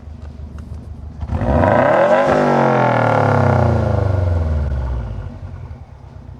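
2015 Subaru WRX STI's turbocharged flat-four, through an aftermarket Borla exhaust, idling, then revved once about a second in: the pitch climbs quickly and falls back slowly to idle.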